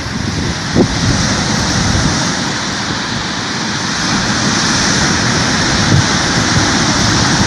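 Steady rushing of moving water, a loud even hiss with no pauses, and one brief low knock about a second in.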